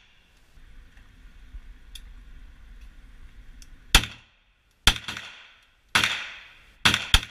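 Beretta M9 9mm pistol firing five shots, about one a second with the last two close together, each with a ringing echo off the walls of an indoor range. A steady hiss runs underneath before the first shot.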